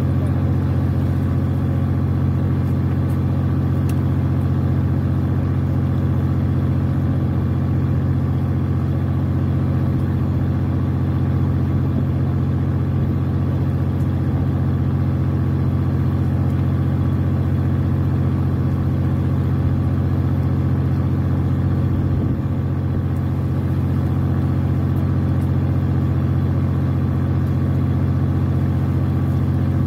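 Fishing boat's engine running steadily: a constant low drone with a slight dip a little over two-thirds of the way through.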